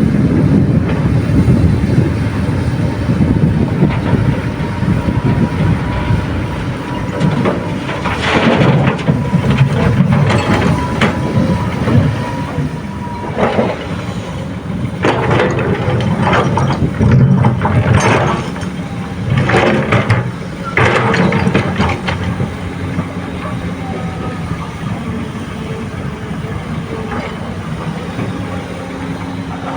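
Komatsu PC200 hydraulic excavator's diesel engine running under load, with several bursts of rock and soil clattering into a dump truck's steel bed in the middle stretch.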